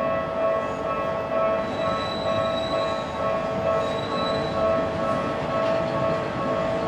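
Japanese level-crossing warning bell ringing in a steady repeating pattern while a Toei 5300-series electric train passes over the rails with a low rumble. A thin high wheel squeal sounds twice, about two and four seconds in.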